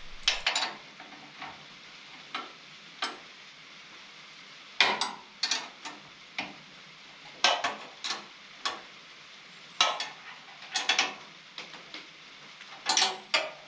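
Irregular light metallic clicks and knocks, some briefly ringing, from steel parts of a sawmill log clamp being handled and worked.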